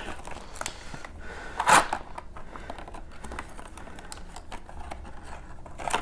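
Plastic blister packaging being handled and pried open: a run of small crackles and clicks, with one louder crinkle just under two seconds in.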